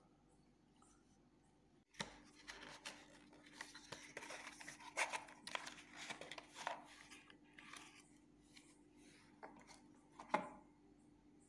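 Cardboard packaging and paper being handled: after a quiet start, several seconds of dense rustling, scraping and crinkling, thinning out, then one sharp click near the end.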